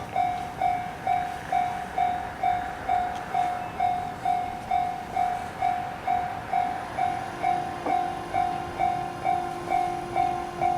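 Japanese railway level crossing warning bell ringing, an electronic two-pitch-free ding repeating evenly about twice a second, signalling that a train is approaching. A faint steady hum joins about six and a half seconds in.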